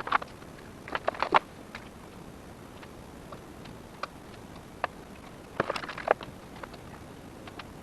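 Scattered sharp clicks and knocks of shop work while an engine is being fitted into a chassis: a quick cluster about a second in, single knocks near four and five seconds, and another cluster around six seconds.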